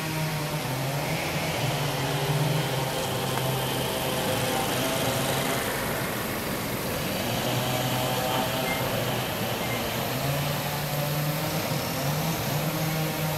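A motor vehicle engine idling nearby, a steady hum at an even pitch that fades out about two seconds in and returns about halfway through.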